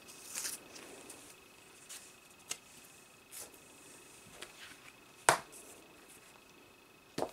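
Quiet handling of a paperback colouring book: faint paper rustles and small taps, then a sharp slap about five seconds in as the book is shut, and another knock near the end as it is moved.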